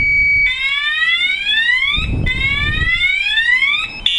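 Spy 5000M motorcycle alarm sounding in full alarm mode. A steady electronic tone gives way to two rising siren whoops, each about a second and a half long, and the pattern switches to short beeping tones near the end.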